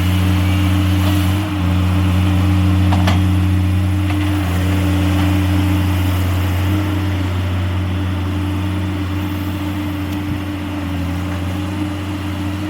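Heavy logging-machine diesel engine running steadily with an even low hum, its pitch holding constant.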